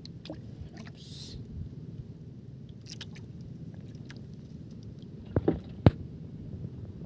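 Steady low rumble of open sea around a small outrigger boat, with scattered light clicks as a fishing line is handled and three sharp knocks close together about five and a half seconds in.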